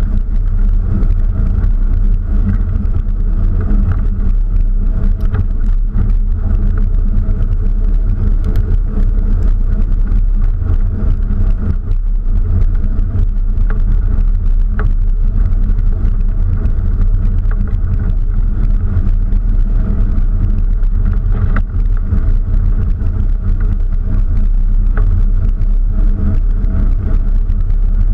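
Doorless off-road vehicle driving steadily along a rough dirt track: a constant low rumble of engine and tyres on gravel, with a few small clicks and rattles scattered through.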